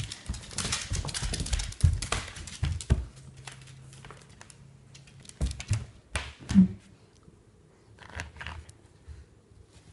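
A small dog scrambling about at play: quick clicks and scuffles of claws on the floor, busy for about the first three seconds and then sparser, with a short low sound about six and a half seconds in.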